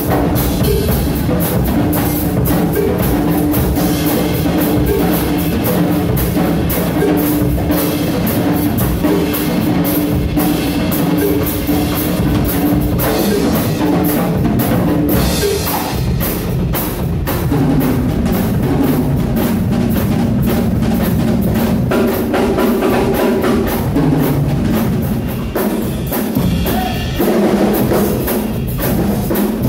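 Drum kit played in a live band, a steady stream of drum and cymbal hits over held pitched notes from other instruments, with the notes changing about halfway through.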